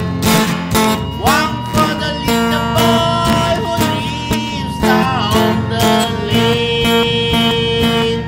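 Acoustic guitar strummed in a steady rhythm while a man sings a folk melody. His voice slides between notes and holds one long note near the end.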